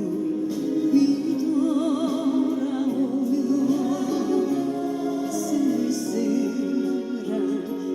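A song sung by a single voice with heavy vibrato, held on long notes, over steady instrumental accompaniment.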